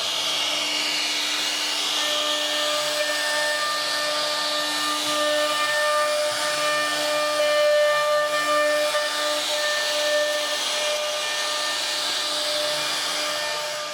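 CNC router spindle running with a steady whine over a loud hiss of cutting noise, the whine's tones dropping in and out as the load changes.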